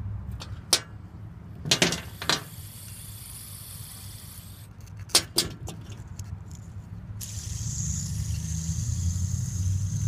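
A handful of sharp clicks and knocks as small objects are handled and set down on a glass-topped table. From about seven seconds in a steady high hiss joins them. A low rumble runs underneath and grows louder near the end.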